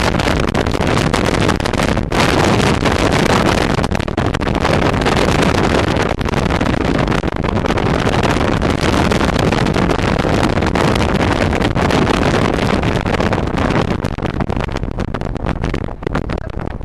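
Waterfall, water rushing in a loud, steady noise that eases a little near the end.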